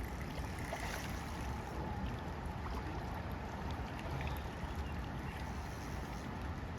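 Steady rush of fast-flowing creek water, with a low rumble underneath.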